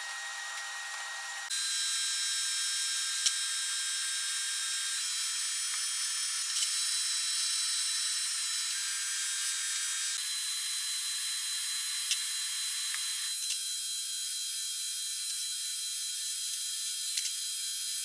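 Steady whine of shop machinery running, with a few faint clicks; the sound shifts abruptly twice, about a second and a half in and near the end.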